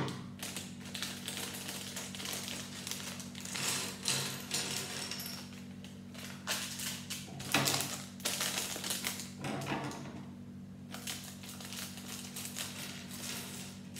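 Plastic Lego parts bags being handled and opened: irregular crinkling and small clicks of bricks, over a steady low hum.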